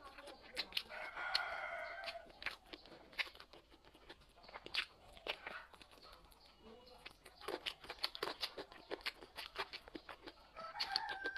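Eating sounds: food being torn and chewed, with many small clicks and crunches. A rooster crows in the background about a second in, and a similar call comes near the end.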